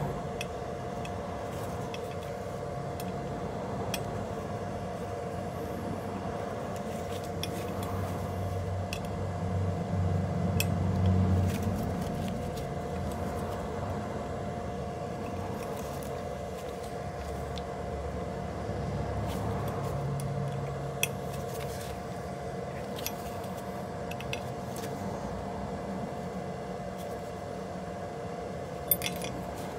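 A steady two-pitched hum, with scattered light metallic clicks of an Allen key working the screws of a scooter brake rotor. A low rumble swells about ten seconds in and again around twenty seconds.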